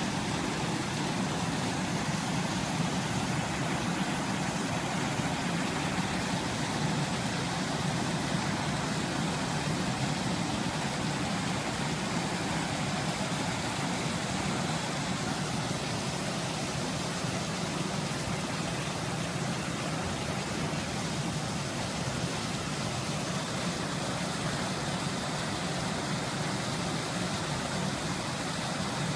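Muddy floodwater from heavy rain rushing and cascading over boulders in a rocky wadi, a steady unbroken rushing noise.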